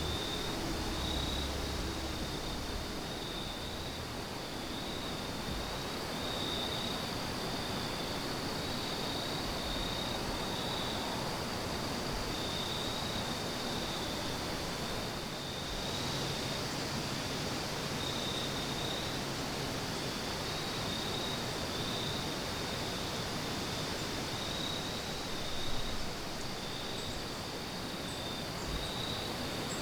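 Insects trilling steadily, a high-pitched chorus that swells and fades in a regular pulse, over a steady outdoor hiss. A single soft thump about three-quarters of the way through.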